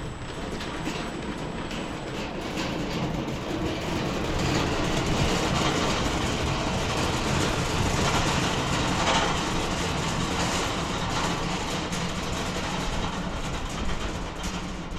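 Home-built 6 ft wide bandsaw mill sawing through an elm log, a steady dense mechanical noise that quietens near the end as the cut finishes.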